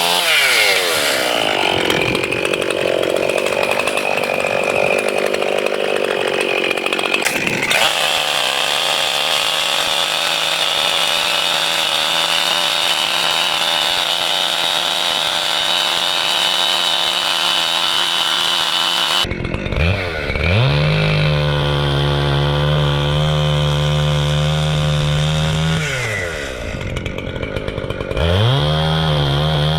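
Chainsaw running at high revs, cutting a dead oak into firewood. Its engine note dips and climbs back a couple of times, and it runs steadily in between.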